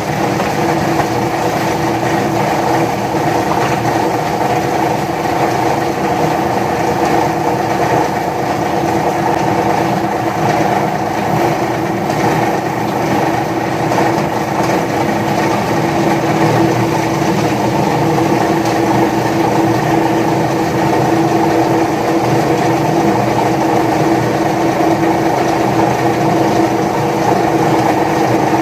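Electric paper shredder running steadily, its motor giving a constant hum with a grinding rush of cutters underneath.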